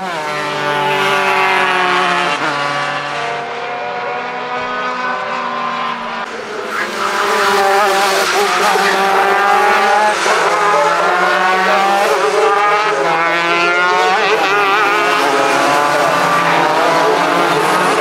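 Superkart 250cc two-stroke racing engines at full throttle on track. The engine pitch slides down as a kart goes by, then, louder from about seven seconds in, rises and falls again and again as a kart runs through the gears.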